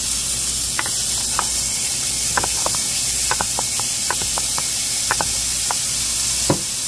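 Frozen chopped onion and pepper mix sizzling in hot oil on browned rice and vermicelli: a steady hiss with scattered pops and crackles, as the ice and moisture turn to steam.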